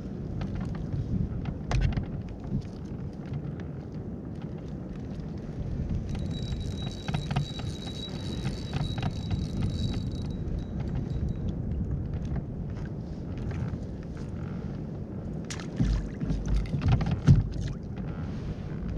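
Wind rumbling on the microphone over water around a fishing kayak at sea. A thin high whine lasts about four seconds in the middle, and a few knocks come near the end.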